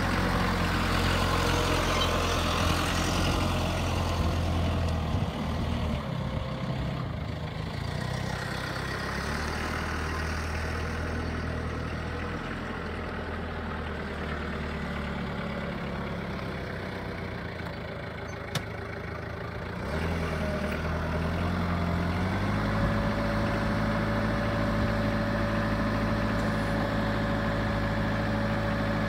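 Diesel engine of a CAT DP35N 3.5-tonne forklift running steadily as the truck drives about. About three-quarters of the way in, the engine speeds up and holds a steady higher note as the mast lifts the forks.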